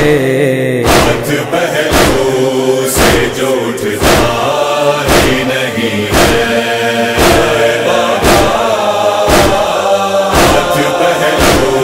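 A chorus of voices chanting a wordless refrain of a nauha lament, kept in time by sharp, even beats about once a second in the manner of matam chest-beating.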